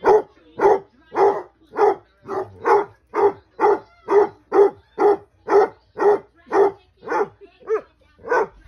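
Basset hound barking in a steady run of about two barks a second, with one bark near the end wavering up and down in pitch.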